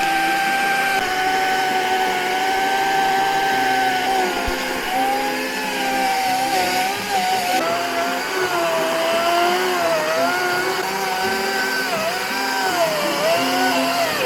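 Chainsaw running at high speed, its pitch sagging and recovering several times as it cuts through a fallen tree.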